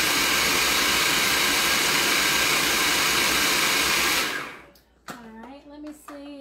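Food processor motor running steadily while it blends a cauliflower and pumpkin mixture, then switched off about four seconds in and quickly spinning down.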